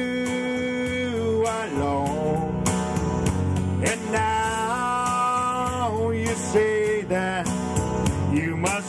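Country music: an acoustic guitar strummed under a slow melody of long held notes that slide between pitches.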